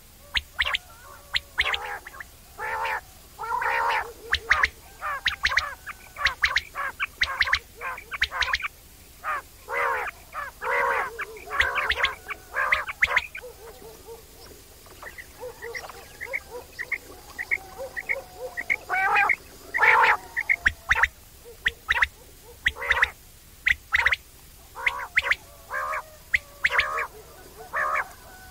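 Quail calling the 'wong wong' call: a dense run of short, repeated, overlapping calls. About halfway through the calling thins to a spell of short high notes before picking up again.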